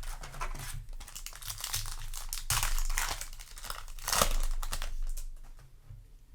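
Foil booster-pack wrapper crinkling and tearing as it is handled, in irregular crackly bursts that are loudest about two and a half and four seconds in.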